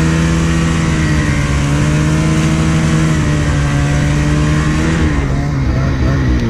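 Turbocharged Polaris Khaos snowmobile's two-stroke engine running at steady high revs while riding through powder, over a steady hiss. Its pitch drops a little near the end as the throttle eases.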